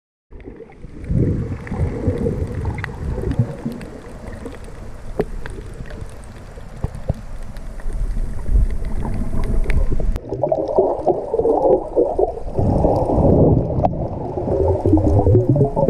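Muffled water sloshing and gurgling heard through an underwater camera, with scattered small clicks. It grows louder about ten seconds in.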